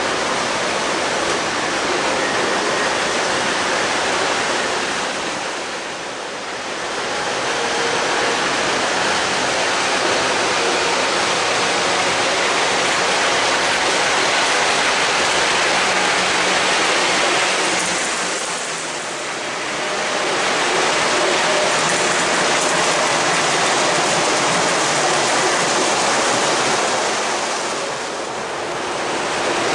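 Model trains running on a large O-gauge three-rail layout: a steady rushing noise of wheels and motors on the track, dipping briefly three times.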